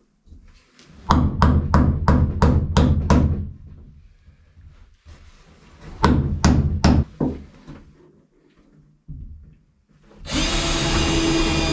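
A hammer driving nails into wood framing: a quick run of about eight strikes, then after a pause about four more. Near the end a cordless drill starts and runs steadily.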